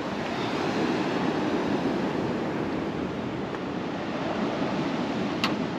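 Surf rushing onto a beach with wind, a steady wash of waves that swells about a second in. A short click near the end.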